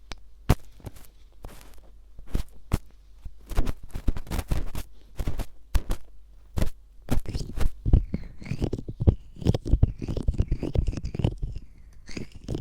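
Ear pick scraping and rustling in a quick, irregular series of short scratchy strokes, the dry 'kasa kasa' sound of ASMR ear cleaning. Faint high squeaky tones join in about two-thirds of the way through.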